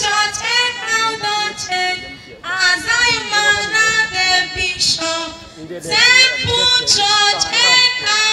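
Women's voices singing a church song of praise, in sung phrases with brief breaks about two and a half and five and a half seconds in.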